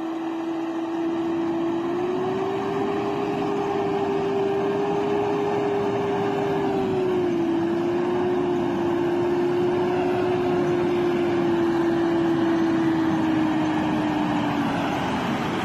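Mitsubishi L200 pickup crawling slowly through water and mud: a steady whining note from the truck that steps up slightly about two seconds in, dips about halfway through and sags lower near the end, over an even hiss.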